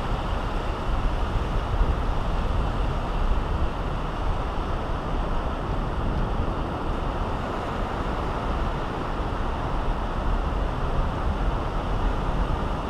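Steady wind rumble on the microphone over the wash of breaking surf.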